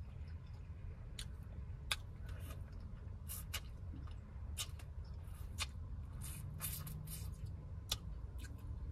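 Eating sounds from a seafood boil: irregular small clicks and crackles as shrimp shells and pieces are handled, peeled and picked from a bowl by hand, over a low steady hum.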